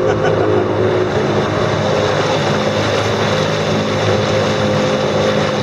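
Boat's outboard motor running steadily at an unchanging pitch, over a steady rush of water and wind.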